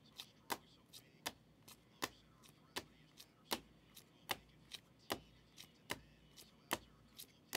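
Hard plastic card holders clicking against each other as a stack of sleeved trading cards is flipped through one by one: sharp clicks about twice a second, some louder than others.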